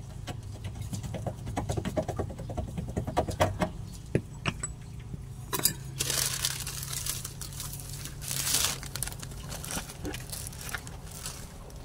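Metal clinks and knocks from a car's rear shock absorber being worked free of its mounts and handled, many in the first four seconds, followed by longer rustling scrapes.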